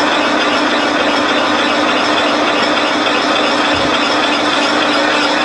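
A lathe running under power, its gearing making a steady mechanical whir with a constant hum, as a boring bar turns in the bore of a motor mount, taking a boring pass.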